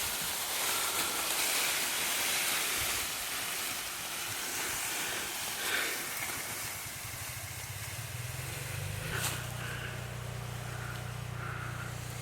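A steady hiss with an engine running at a steady low pitch, strongest from about seven seconds in, and a sharp click a little past nine seconds.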